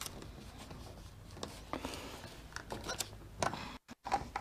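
Faint handling sounds of wires and a small plastic control enclosure: light clicks and rustles, with a few ticks about a second and a half in and again around three seconds in. The sound cuts out completely for a moment near the end.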